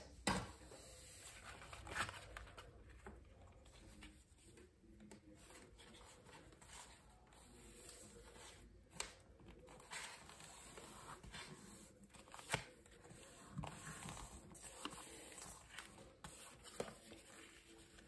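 Faint rustling and light tapping of paper and cardstock being handled, folded over and pressed down on a craft mat, with a few short sharp ticks.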